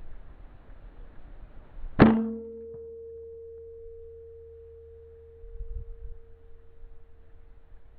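A single air-rifle shot about two seconds in: a sharp crack followed by a long metallic ring that slowly fades away over several seconds.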